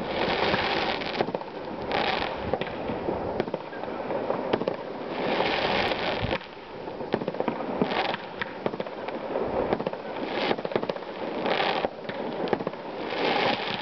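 Many fireworks going off at once: a dense, continuous run of bangs and crackling pops, with hissing bursts every second or two.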